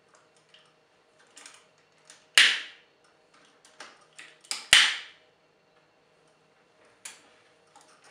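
Hard plastic parts of a large Transformers toy clicking and clacking as they are handled and shifted, with two loud sharp clacks about two and a half and nearly five seconds in.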